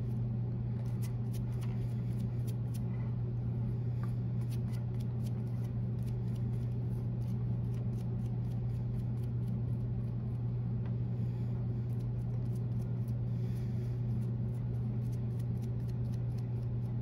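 A steady low hum throughout, with light scratchy brush strokes as a glue brush spreads contact cement over a rubber heel top lift.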